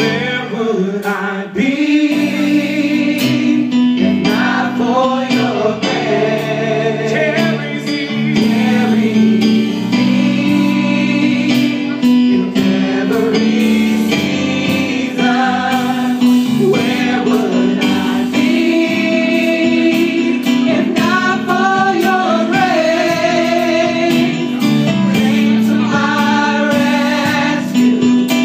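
A small worship team of mostly women sings a gospel praise song together into microphones, over sustained keyboard chords.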